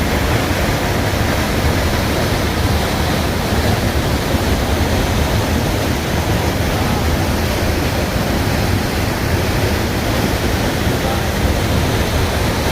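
Waterfall crashing steadily, a loud, even rush of falling water.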